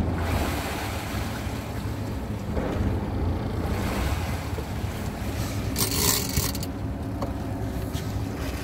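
Sportfishing boat's engine running with a steady low hum under wind and sea noise. About six seconds in there is a short hissy burst.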